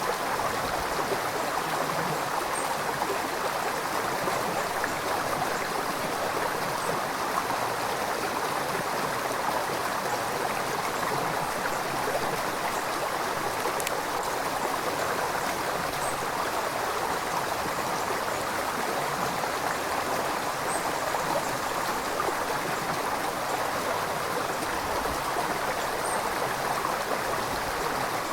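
River water flowing steadily over stones, a continuous rushing and burbling with no change in level.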